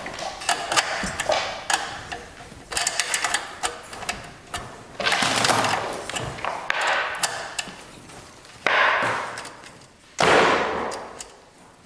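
Rapid metallic clicking and rattling from hand-tool work on a steel hose reel, in several short bursts.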